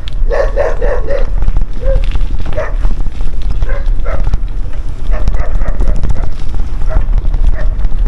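A dog barking: a quick run of barks in the first second, then single barks every second or so. A steady low rumble runs underneath.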